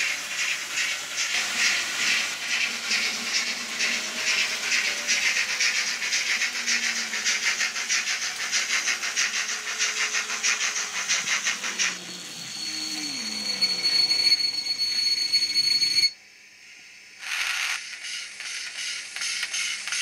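Steam locomotive sound: chuffing in a steady rhythm with hiss. About twelve seconds in it changes to a steady high tone over weaker chuffs, then cuts out for about a second, and the chuffing comes back.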